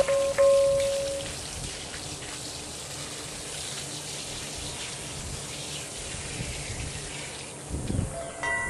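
Water from a garden hose running onto loose soil, a steady hiss. A chime-like melody fades out in the first second, and another tune starts near the end just after a low thump.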